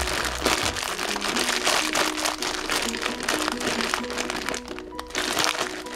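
Background music with a simple stepping melody and a light steady beat.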